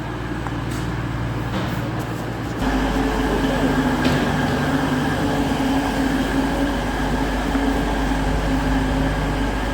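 Class 222 Meridian diesel multiple unit's underfloor diesel engines running at the platform with a steady hum. The hum steps up louder about two and a half seconds in and then holds steady.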